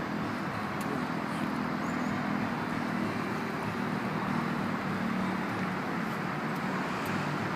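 Steady low rumble of distant road traffic, an even hum with no separate events.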